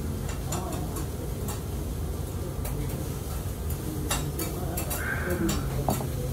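Restaurant dining-room noise: a steady low hum with scattered light clinks and taps of dishes and cutlery.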